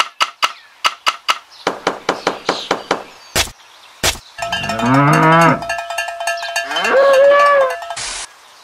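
A cowbell clanking in a run of quick ringing strikes, two sharp knocks, then a cow mooing twice, the second moo higher than the first.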